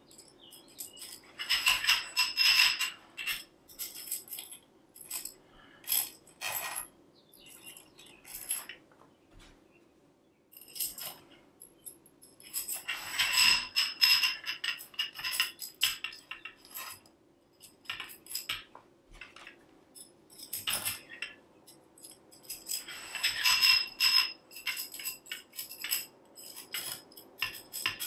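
Metal tensegrity tubes clinking and ringing against each other, with many small clicks of metal cord-end hooks being unhooked and hooked into the tube ends. The clinking comes in three louder clusters about ten seconds apart, with scattered clicks between.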